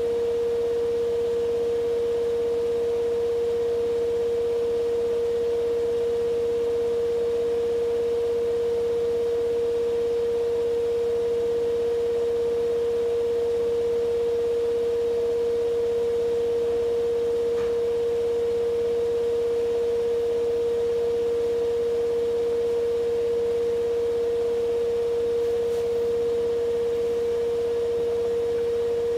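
Siemens iQ500 9 kg, 1200 rpm washing machine in its spin cycle, its drum turning at a steady speed with a steady, even whine and low hum. There is no knocking or rumbling: this is the sound of a machine in sound order.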